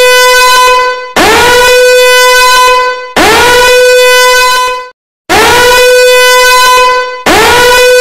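Danger alarm horn sounding in repeated loud blasts about two seconds apart. Each blast swoops quickly up in pitch and then holds a steady, buzzy tone. There is a short break just before the middle.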